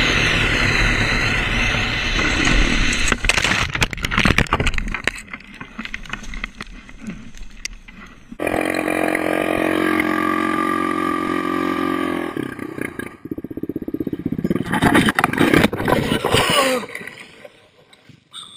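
Sport ATV engines running hard at speed, with wind buffeting the helmet-mounted camera, over several short cuts; one stretch holds a steady high-revving engine note. Near the end come clattering knocks and scrapes as a quad crashes and the camera tumbles.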